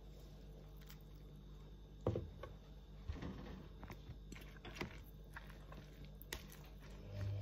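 Metal fork clicking and scraping against a plastic food container as food is picked up and eaten, with a sharp tap about two seconds in and scattered smaller clicks after it, over a steady low hum. A louder low hum starts near the end.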